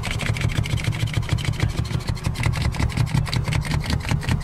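Orange suction-mounted cord-winding glass cut-out tool reeling in its cutting cord, slicing through the urethane bead that holds the quarter glass, with rapid, even clicking over a low rumble.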